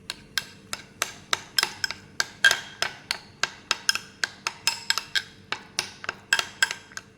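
A spoon clicking rhythmically against a container, several times a second, while stirring poha premix with boiling water.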